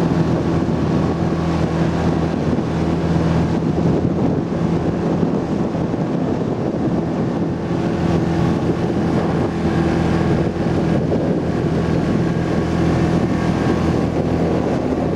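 Speedboat engine running steadily under way, a constant hum over rushing wind and water noise, with wind buffeting the microphone.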